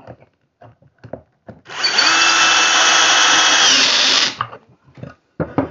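Ryobi cordless drill driving a pocket-hole screw to join two boards, running steadily for about two and a half seconds with its pitch dropping just before it stops. Short knocks come before and after it.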